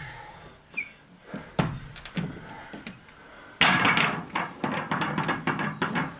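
Separate knocks and thuds of feet and bodies on a wooden floor during stage-combat practice. About three and a half seconds in, a sudden loud run of many quick sharp sounds begins and lasts about two seconds.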